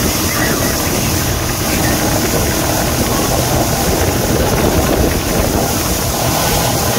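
Motorboat engine running steadily while towing an inflatable tube, with the rush of water from its churning wake.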